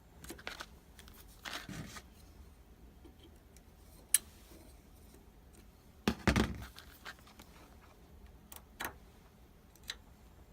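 Scattered handling noises of hands working at the water heater's thermostat and multimeter probes: rustling and scraping, a few sharp clicks, and a louder burst of rubbing and knocking about six seconds in.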